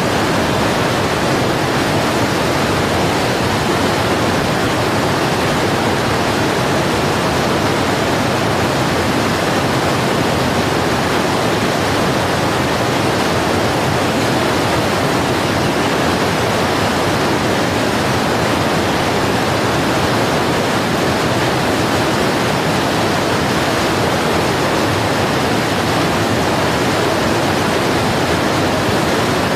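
River water pouring steadily over a low weir and churning into whitewater below it: a continuous, even rushing that does not change.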